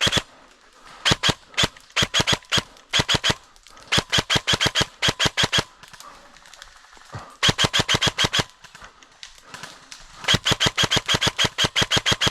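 Airsoft gun firing in repeated short bursts of rapid shots, about ten a second, with longer bursts in the middle and near the end.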